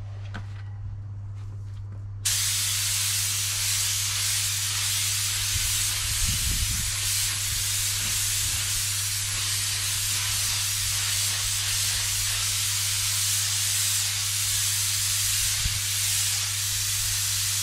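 Compressed air hissing steadily from a paint spray gun during bumper refinishing. It starts abruptly about two seconds in, over a steady low hum.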